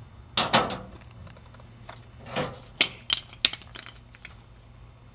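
Skateboard being handled: two heavier knocks, then a quick run of sharp clicking and rattling from its metal trucks.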